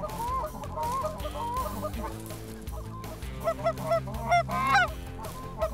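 Canada goose honking and clucking: many short overlapping calls, growing busier and more excited about four to five seconds in as the flock comes in to the decoys.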